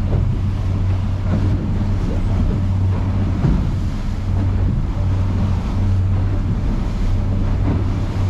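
Boat engine running steadily with a low, even drone, and wind buffeting the microphone.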